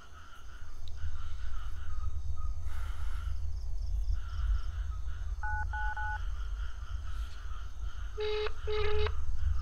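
Smartphone keypad tones beeping twice about halfway through as a number is dialled, then the double-ring ringback tone of the outgoing call ringing twice near the end, over a steady low rumble.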